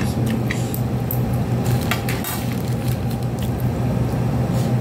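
Eating sounds: a few short clicks of plastic utensils and wet mouth noises as rice is taken and chewed, over a steady low hum.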